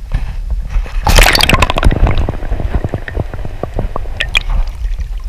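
Water splashing and gurgling around an action camera dipped under the surface: a burst of splashing about a second in, then a run of bubbling pops and drips that thin out, over a steady low rumble.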